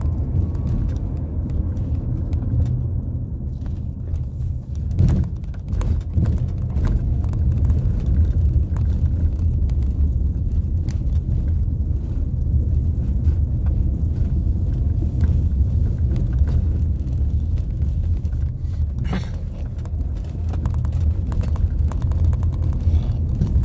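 Low, steady rumble of a car's engine and tyres heard from inside the cabin while driving slowly, with a few sharp knocks or rattles about five seconds in and again later.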